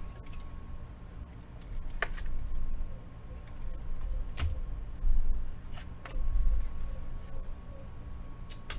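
Trading cards and foil packs being handled on a table, with a few sharp clicks and several soft low thumps. A faint steady electrical tone sits underneath.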